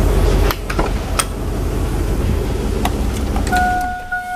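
Pickup truck engine running with a loud low drone that drops about half a second in, followed by several clicks and knocks as the driver's door is opened. Near the end a steady electronic chime from the truck starts up.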